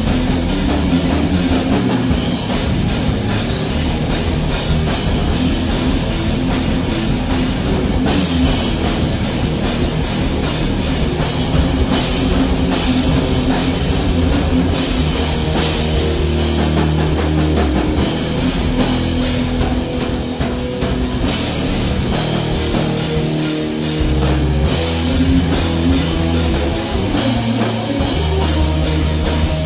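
Live improvised rock jam: guitar and drum kit playing a heavy, rough-sounding groove built on just two notes, E and F, with sustained low notes underneath.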